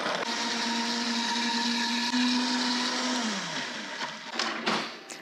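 Vita-Mix blender running, puréeing dried chiles, garlic, ginger and spices with water into a chile paste; its pitch steps up slightly about two seconds in. A second later it is switched off and the motor winds down with a falling whine, followed by a few light knocks near the end.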